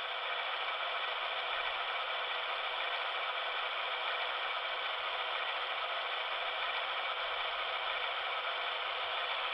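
The speaker of an HO-scale GE AC6000 model's Paragon sound decoder plays a steady diesel engine sound. It sounds thin and tinny, with no bass.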